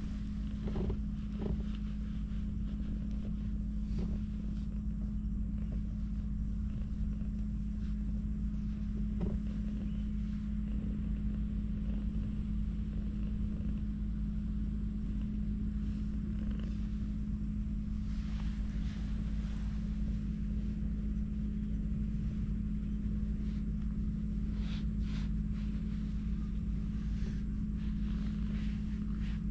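A steady low rumble with a constant low hum underneath, unchanging throughout, and a few faint rustles and clicks on top.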